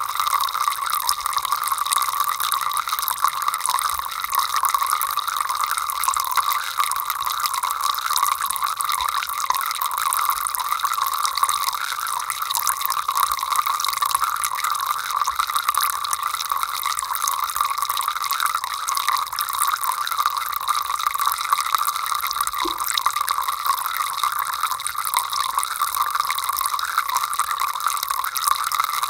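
Water running steadily from a household tap in an even, continuous stream.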